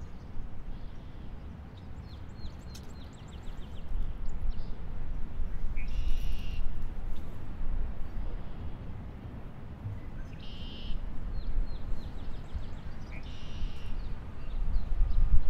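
Outdoor park ambience: a bird calls three times, each call a short rising note running into a buzzy trill, over a low rumble that swells and fades. A quick run of high ticking chips comes about three seconds in.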